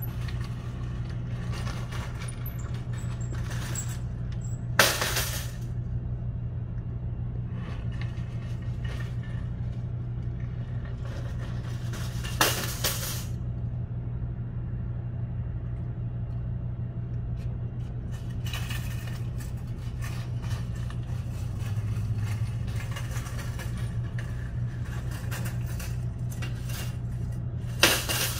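Metal shopping carts clanking against each other three times as they are handled, over a steady low hum.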